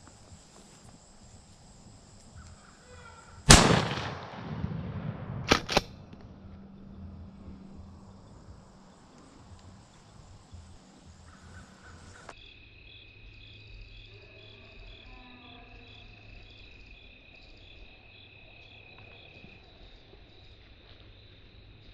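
A single loud blast from a Remington 870 pump-action shotgun that rings out for about a second. About two seconds later come two quick sharp clacks of the pump being racked. Insects trill steadily underneath.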